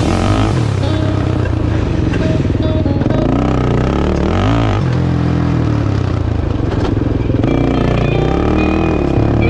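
Background music with an off-road motorcycle or quad engine revving up and down a few times.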